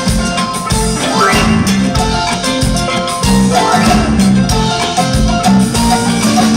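Live band music: an instrumental break with drums keeping a steady beat under melodic lines, no singing.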